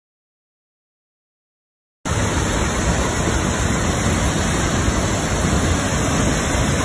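Dead silence for about two seconds, then the steady rushing of a waterfall cuts in abruptly and stays loud and even.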